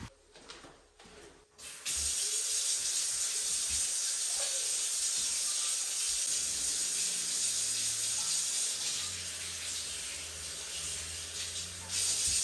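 Water running steadily from a tap into a sink, starting about two seconds in after a brief silence, with a short break and a fresh burst near the end.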